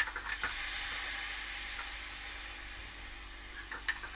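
Chicken pieces frying in a pot, sizzling as sauce is squeezed in from a bottle. The sizzle swells about half a second in and slowly dies down, with a couple of faint clicks.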